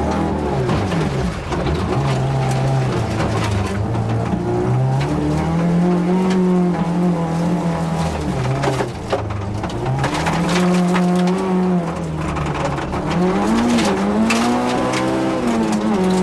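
Yugo rally car's four-cylinder engine heard from inside the cabin, revving hard and falling back with each gear change several times, with stones from the gravel track clattering against the car's underside.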